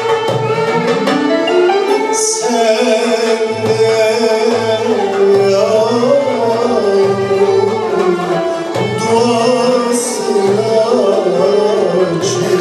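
A male solo voice singing a Turkish classical (Türk Sanat Müziği) song, with long held, ornamented notes, accompanied by a live ensemble including violins.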